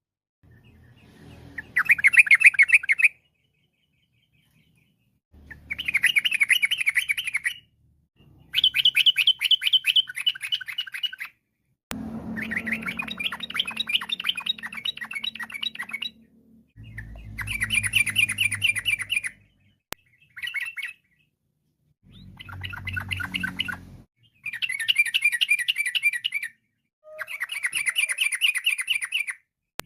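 Yellow-vented bulbul (trucukan) singing in rapid, chattering trilled phrases, each one to three seconds long. About nine phrases come in turn with short pauses between them.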